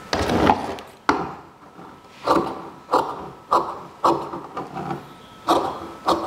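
Large fabric shears snipping through a double layer of cotton lining strip and non-woven fusible interfacing (fiselin) on a wooden table. The crisp cuts come about every half second, with a short pause near the end. In the first second there is rustling and handling of the stiff interfacing sheet as the shears are picked up.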